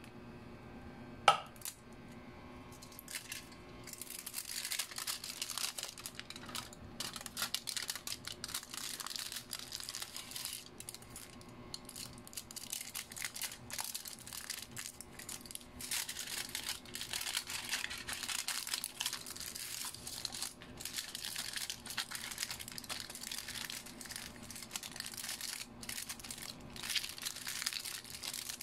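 Aluminium foil crinkling and crackling irregularly as it is folded and rolled up by hand, starting about four seconds in. About a second in there is a single sharp clink.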